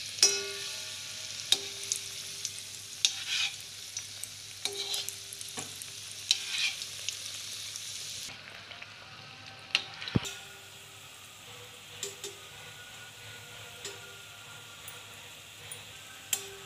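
Bread gulab jamun balls deep-frying in ghee in a metal kadhai on a low flame, giving a steady sizzle. A perforated metal spoon clinks against the pan every second or two as it turns and bastes them, and there is one heavier knock about ten seconds in.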